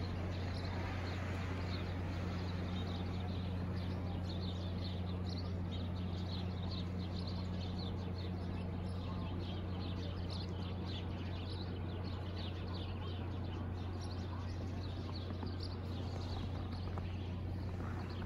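Outdoor city ambience: a steady low machine hum, with many small high chirps like a flock of small birds chattering.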